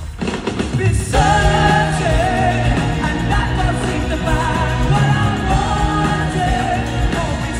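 Live pop-rock band with a male lead singer: the voice is heard over a full band with heavy held bass notes. The middle range drops out briefly at the start, and the voice and band come back in about a second in.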